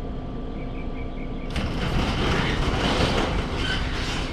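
An engine running steadily, joined about a second and a half in by a loud rushing noise.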